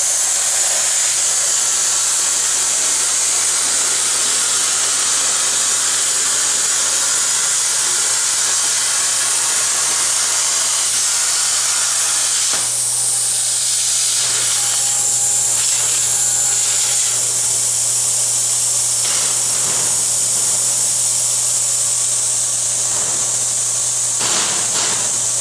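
CNC plasma cutter torch cutting metal: a steady hiss with a low hum beneath it.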